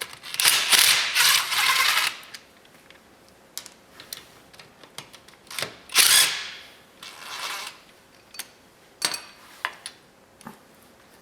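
A ratchet tool working bolts loose on a truck rear axle in bursts, loudest for the first two seconds and again around six seconds in, with sharp metallic clicks and clinks between.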